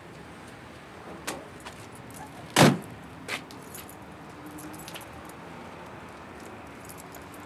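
Lorry cab door slammed shut with one heavy bang about two and a half seconds in, with lighter clicks just before and after. Then keys jingle and click in the door lock as the cab is locked.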